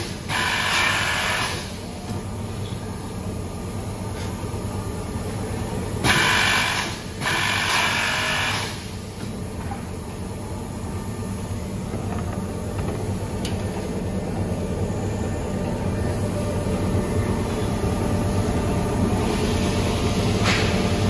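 Multi-spindle boring machine with air-driven clamps running with a steady hum, with two loud hissing bursts as it cycles through a drilling stroke on a cabinet panel.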